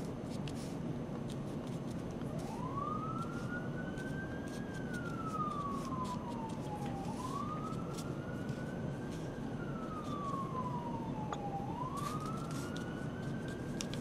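An emergency-vehicle siren wailing, its pitch rising and falling slowly about three times, starting a couple of seconds in, over a steady background hiss.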